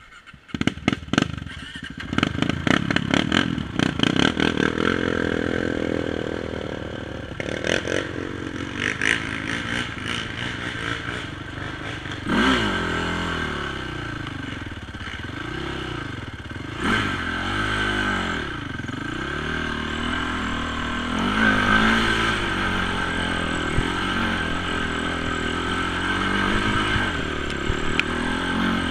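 Honda TRX450 quad's single-cylinder four-stroke engine on a trail ride, revving up and falling back again and again as the throttle is worked. A rapid run of clattering knocks comes in the first couple of seconds.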